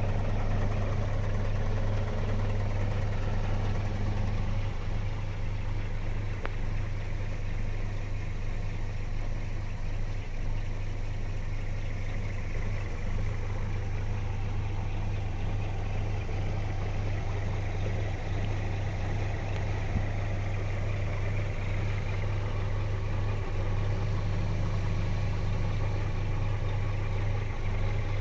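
Scania R 420 truck's inline-six diesel engine idling steadily, heard from inside the cab as a low, even hum.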